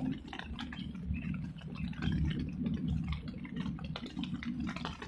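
Wind buffeting the microphone: a low, uneven rumble that swells and dips, with scattered faint ticks.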